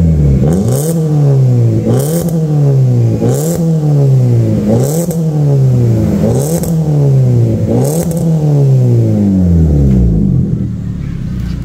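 Suzuki Ertiga's exhaust through a newly fitted bolt-on HKS-style racing muffler, the engine revved in about seven quick throttle blips. Each blip rises sharply in pitch and falls back slowly, and the engine settles to idle near the end.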